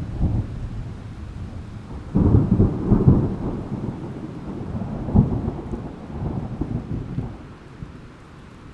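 Thunder over steady rain: a loud rumbling peal breaks in suddenly about two seconds in, cracks again a little after five seconds, then rolls away near the end.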